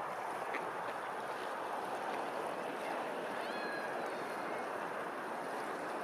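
Steady rush of open water, with a faint short bird call about three and a half seconds in.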